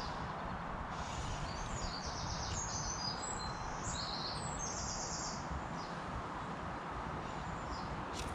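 A small songbird singing a quick string of high, chirping trilled phrases for about five seconds, then stopping, over a steady rushing background noise.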